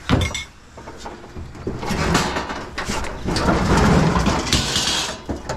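A sharp knock, then a few seconds of scraping and rattling as a bulky scrap item is shifted and manoeuvred into place. The scraping is loudest near the end and then stops.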